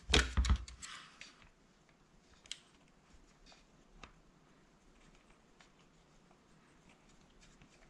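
A Porter-Cable DA250C brad nailer being handled on a workbench: a cluster of knocks and clicks in the first second, then near quiet with a few faint clicks.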